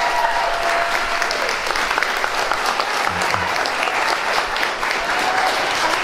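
Audience applauding steadily, a dense patter of many hands clapping, as the last held notes of the music die away just at the start.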